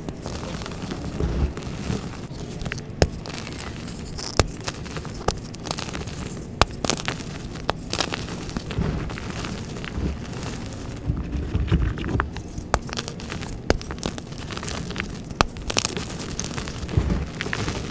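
Hands crushing and crumbling soft blocks of gym chalk packed in cornstarch and baby powder: a steady crunching with sharp snaps every second or so.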